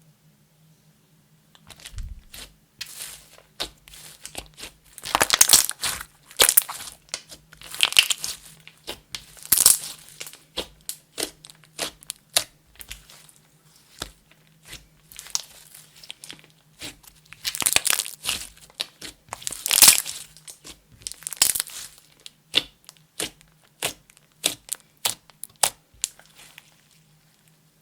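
Clear slime being squished and worked by hand, giving irregular crackling, crinkly bursts, some brief and some lasting about half a second, as trapped air pops.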